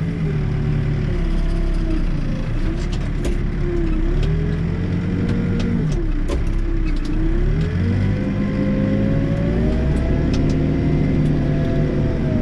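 Backhoe's diesel engine running under hydraulic load, its speed sagging twice and then climbing and holding higher before easing off again as the loader and hoe work. A few light clicks and clanks sound in the first half.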